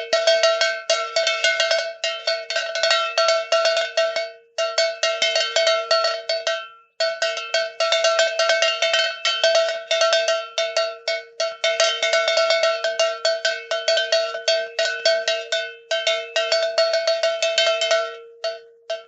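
A metal bell clanking rapidly and repeatedly, many strikes a second, in three long runs broken by short pauses, with one last strike at the end.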